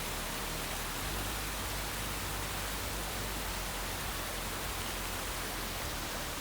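Steady, even rushing noise with a low rumble underneath, unchanging throughout.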